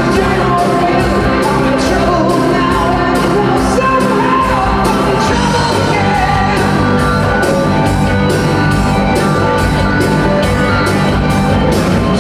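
Rock band playing with a singer over a steady drum beat.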